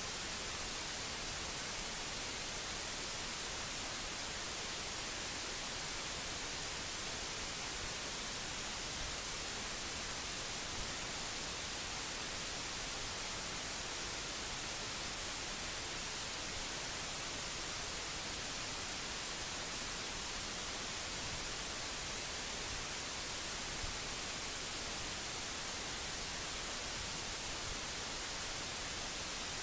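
Steady hiss, the unchanging noise floor of the recording's microphone, with no other sound.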